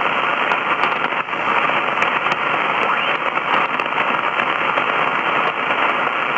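Shortwave static hiss with scattered crackles from a Grundig Satellit 800 receiver's speaker, tuned in lower sideband and swept quickly up the 75-meter ham band between stations, so no signal is coming through.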